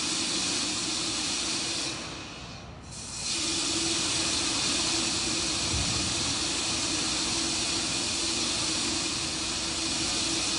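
Steady hiss of the Terran 1 rocket venting propellant vapour on the launch pad in the last seconds before ignition, over a low steady hum. The hiss fades briefly about two seconds in, then comes back.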